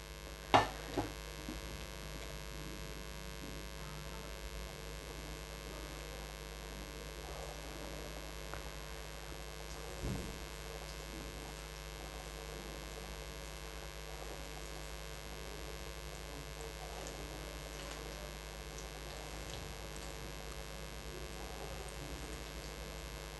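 Steady electrical hum over a faint sizzle of mung dal fritters deep-frying in hot mustard oil in a kadhai, with two light knocks about half a second in and a small splash-like sound about ten seconds in.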